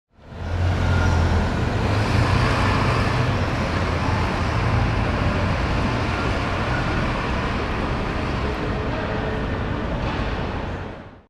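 Steady vehicle or traffic noise with a strong low hum, fading in at the start and fading out at the end.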